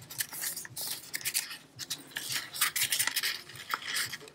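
A sheet of paper rustling and scraping as fingers tuck a folded flap into its pocket and press it flat, in a string of short, irregular rubs.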